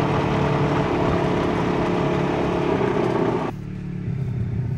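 A car engine running steadily: a low hum under a wide hiss. About three and a half seconds in, the sound drops abruptly to a quieter, lower hum.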